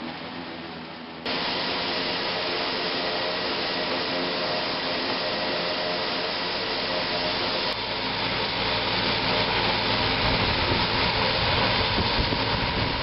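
Pull-type forage harvester with a rotary corn head running while cutting corn: a steady, dense machine noise with a tractor engine rumble underneath. The sound changes abruptly about a second in, getting louder, and again about halfway through, where the low engine rumble comes up.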